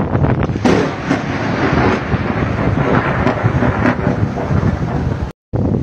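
Thunder from a lightning strike: it starts suddenly under a second in and rolls on for several seconds, with wind buffeting the microphone. The sound drops out briefly near the end.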